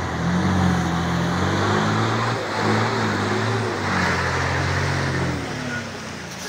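Coach bus engine running under load at low speed, its pitch stepping up and down, over a steady hiss of noise; the engine sound falls away about five and a half seconds in.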